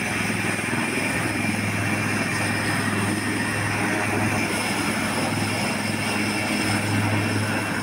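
HAL Dhruv ALH Mk III naval helicopter running on the ground with its rotor turning: steady rotor and twin-turboshaft engine noise, with a thin high whine over it.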